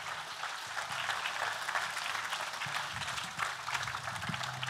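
A large crowd applauding, a dense steady clapping throughout.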